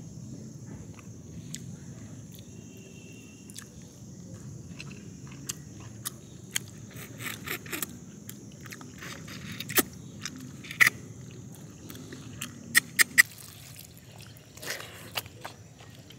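People eating rice and ghee-roasted mutton by hand off banana leaves: fingers squelching through the food, chewing and mouth smacks, with a cluster of sharp clicks about two-thirds of the way through. A steady high hiss runs underneath.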